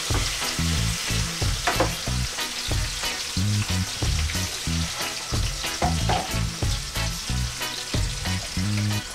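Barracuda steaks sizzling steadily as they fry in oil in a pan with onions, with light scraping of tongs turning them. A low, repeating bass beat of background music runs underneath.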